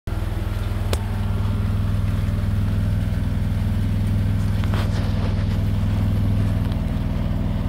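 Engine of a Miller engine-drive welding machine running steadily at a constant speed, with a single faint click about a second in.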